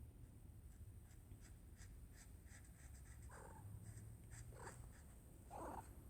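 Faint scratching strokes of colouring on paper, a few a second. Three short soft sounds come in over the second half, the loudest near the end.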